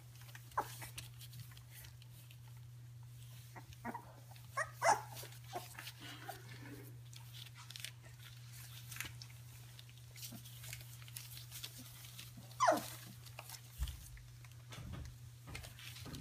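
Stabyhoun puppies play-fighting, giving short high yips and squeaks: a few around four to five seconds in, and the loudest, a yelp that falls in pitch, about three-quarters of the way through. A steady low hum runs underneath.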